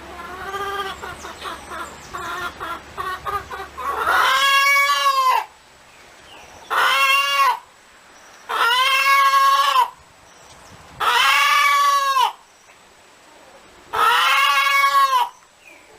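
Chickens calling: a run of quick clucks for about four seconds, then five long drawn-out calls, each rising and falling in pitch and lasting over a second, with short pauses between them.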